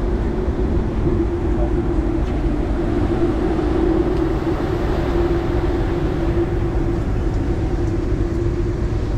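Steady low rumble of a passenger ferry under way, with a held hum over it that does not change.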